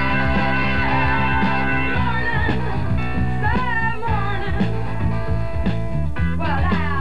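Music with a steady beat, with wavering high melodic lines about halfway through and again near the end.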